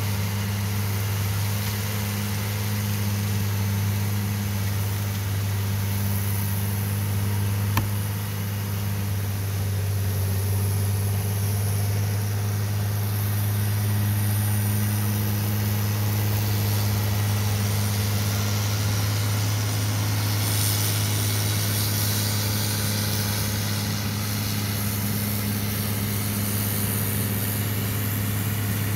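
Farmall 1066 tractor's diesel engine running steadily under mowing load, a constant low hum. A single sharp click sounds about eight seconds in.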